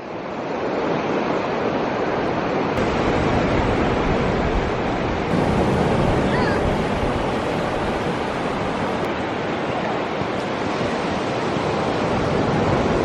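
Ocean surf washing in steadily, a continuous rush of breaking waves.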